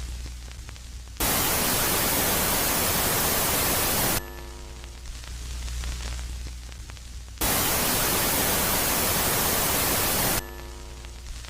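Ambient 'space sound' track for Jupiter's moon Megaclite, alternating between a quiet phase and a loud phase. It runs as a low steady hum with faint held tones, broken twice by a loud hiss like radio static. Each hiss switches on abruptly and cuts off after about three seconds.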